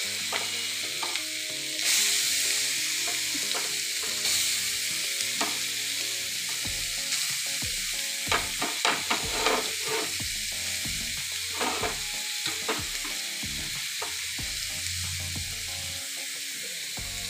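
Grated carrots frying in hot ghee in an aluminium kadai, with a steady sizzle. Stirring knocks and scrapes against the pan come through, most thickly around the middle.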